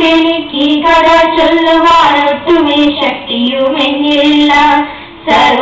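A girl singing solo into a microphone in long, held notes, with a brief break near the end.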